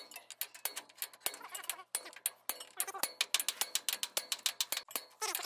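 A steel bar knocking and scraping against metal inside a truck wheel hub's bore: quick, irregular sharp taps, several a second.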